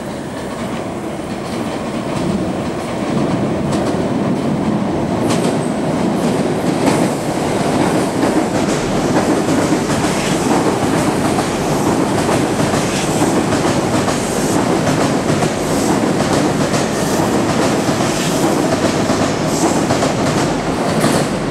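Joban Line express electric train running through the station at speed. A rumble builds over the first few seconds, then holds loud as the cars rush past the platform, with rapid clicking and clatter of wheels over rail joints.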